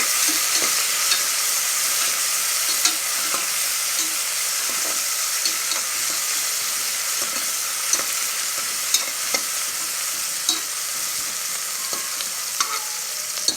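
Sliced onion, green chillies and mint sizzling in hot oil in a pressure cooker while being stirred, with a spoon clicking and scraping against the pot every second or so. The onions are being sautéed until soft.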